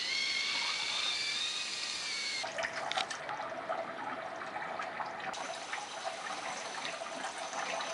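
Compressed air from an air hose hissing and whistling as it is forced into an ATV's top radiator hose to push coolant out. About two and a half seconds in, this gives way to coolant pouring and splashing into a bucket under the radiator, with a steady tone over it.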